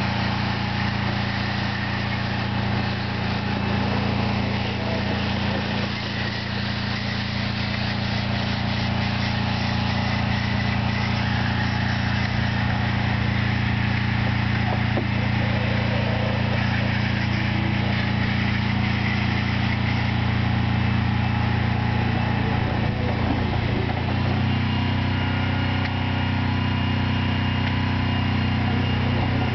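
Pressure washer's engine running steadily, with a hiss of spray over it; the engine's pitch shifts slightly about three-quarters of the way through.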